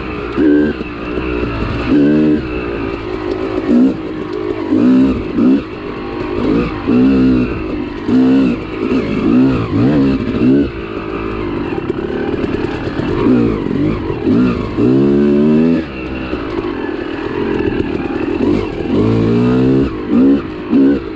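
2001 Yamaha YZ250's single-cylinder two-stroke engine under riding load, revving up and dropping back over and over, about once a second, with each burst of throttle climbing in pitch. There is a longer, steadier pull about two-thirds of the way through.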